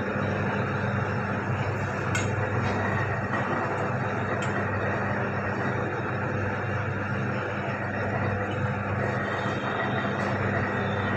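Motorised pipe ring-rolling machine running steadily, its electric motor and rollers humming as a 1-inch stainless steel pipe is fed through and curled into a ring. A few light clicks come at about two, four and ten seconds in.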